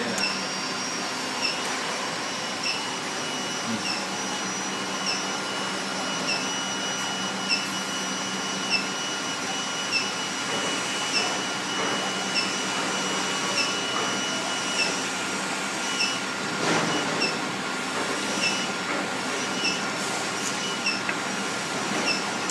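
Integrated induction gold melting furnace running: a steady fan-like noise with a constant whine. A short chirp repeats about every 1.2 seconds.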